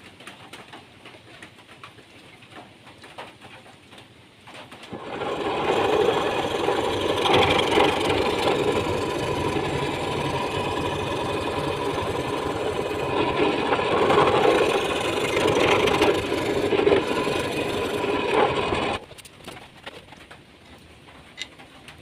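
Electric drum sander starting up about five seconds in, running steadily as it sands wood, then stopping abruptly a few seconds before the end.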